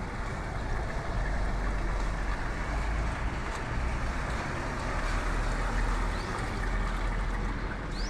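Wind buffeting the microphone outdoors: a steady rushing noise with an uneven low rumble. A couple of faint, short, high chirps sound near the end.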